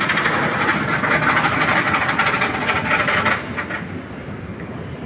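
Steel roller coaster train of Griffon, a Bolliger & Mabillard dive coaster, running along the track with a loud rushing roar that drops away about three seconds in.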